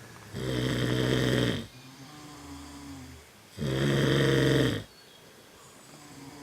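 Snoring: two long, loud snores about three seconds apart, each lasting about a second, with a quieter breath between them.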